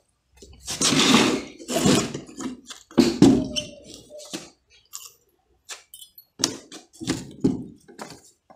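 Claw hammer knocking and working the wooden boards of a timber formwork footing box: a few heavy, irregular knocks and scrapes of wood in the first few seconds, then lighter knocks near the end.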